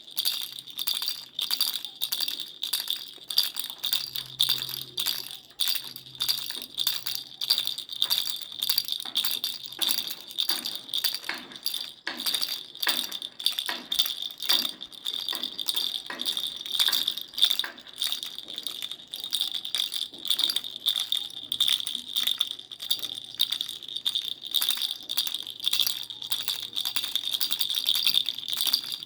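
Baby rattle toy shaken continuously in quick, even strokes, its rattling ringing over a steady high jingle.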